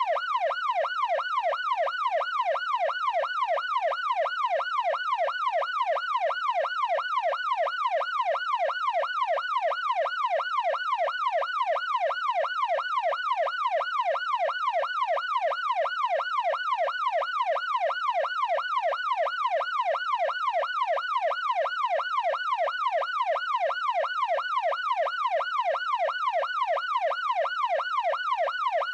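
Electronic police siren in fast yelp mode, its pitch sweeping up and down about twice a second, steady and unchanging throughout.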